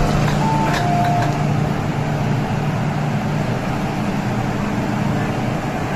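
MTR M-train door chime, a two-note tone stepping from high to low, sounding about half a second in after another ends at the start. Under it is the steady low hum of the standing train's equipment.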